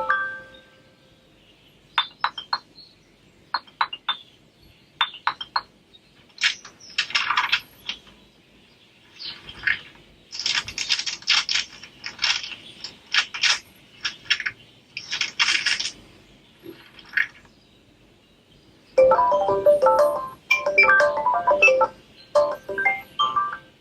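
Preset ringtones of a Sharp Aquos Pad SH-08E tablet played one after another through its speaker, with short pauses between them. First come short separate beeps, then clusters of bright, hissy sound-effect bursts, then a quick tune of pitched notes near the end.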